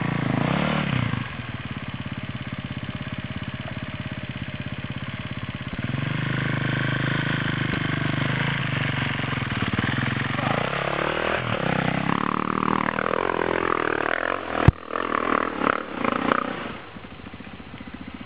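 Enduro dirt bike engines running and revving, the pitch rising and falling repeatedly from about ten seconds in as the throttle is opened and closed. A single sharp knock about fifteen seconds in, and the engine sound drops lower near the end.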